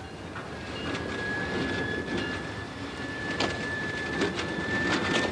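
Rail cars in a freight yard: a long, thin, high metal squeal of train wheels begins about a second in, over a low rumble, with several sharp clanks in the second half.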